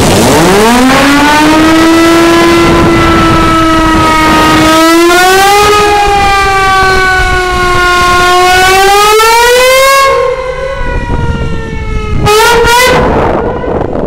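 SS Shieldhall's steam foghorn (steam whistle) blowing in salute to a passing cruise ship: one long, loud blast of about ten seconds that slides up in pitch as it opens and climbs higher in steps, then a second short blast near the end.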